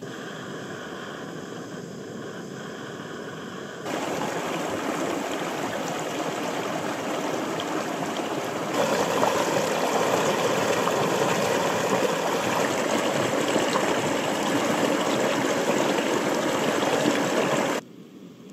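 Mountain river water rushing and splashing over rocks, a steady noisy wash that grows louder in two sudden steps and then cuts off abruptly near the end.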